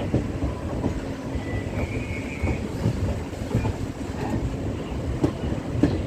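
Passenger train running along the track: a continuous low rumble with irregular knocks of the wheels over rail joints.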